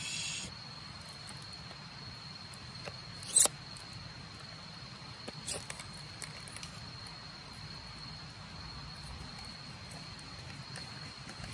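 Steady high-pitched trill of night insects runs throughout. Over it come small cooking-handling noises: a sharp click about three and a half seconds in, then a few soft clicks and rustles as a knife slits the plastic film on a tofu pack.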